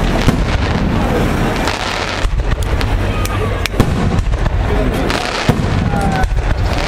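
Aerial firework shells bursting overhead in quick succession: many sharp bangs and crackles over a continuous low rumble.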